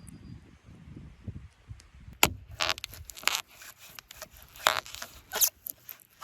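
Branches and brush breaking: one sharp crack about two seconds in, then several short crackling, tearing noises.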